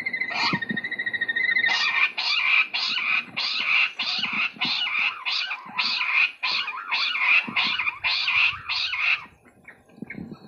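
Jungle bush quail calling: a short high trill, then a run of rapid calls at about two a second, which stop near the end.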